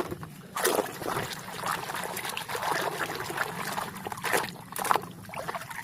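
Water trickling and sloshing as a muddy toy is washed by hand, with a few sharper splashes.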